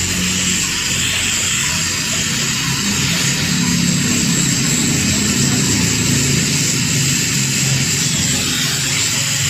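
LPG welding torch flame burning steadily with a rushing hiss, over a low, uneven hum, while aluminium is being welded.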